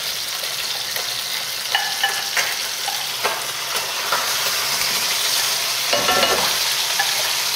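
Chicken and vegetables sizzling in oil in a cocotte as the vegetable garnish is tipped in from a bowl. A few light clinks and knocks come in the first half.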